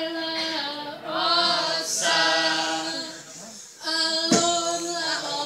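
Saman dancers singing a chant together, unaccompanied, on long held notes with short breaks. Two sharp hand strikes cut in, about two seconds in and again just after four seconds.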